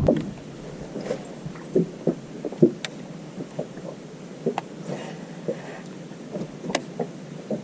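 Light clicks and knocks on a small fishing boat, scattered unevenly at about one or two a second, over a faint hiss of wind. No motor is running.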